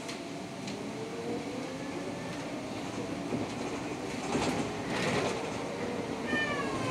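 Škoda 32Tr SOR trolleybus under way, heard from inside: steady rolling noise with rattles and a couple of knocks a little past halfway. The electric traction drive whines, rising in pitch about a second in, and several whine tones fall together near the end as it slows.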